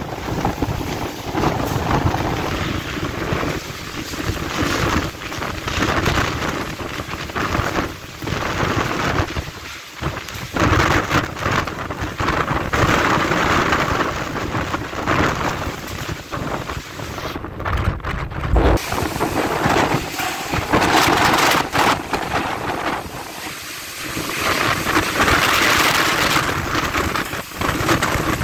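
Typhoon wind and rain: gusts swell and ease every few seconds over a continuous hiss of rain, with the wind buffeting the microphone.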